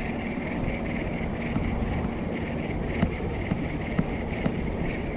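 Wind rumbling on the microphone over a steady low hum, with a few faint clicks.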